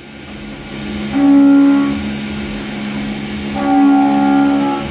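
CNC milling machine cutting with a 10 mm solid carbide end mill: a steady spindle hum, with the cut giving a pitched whine twice, about a second in and again near the end, as the cutter engages the workpiece.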